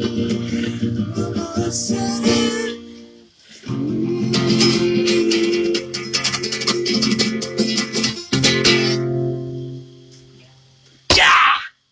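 Acoustic guitar strumming the closing chords of a song, which ring out and die away about nine to ten seconds in. Near the end comes a short, loud burst of noise.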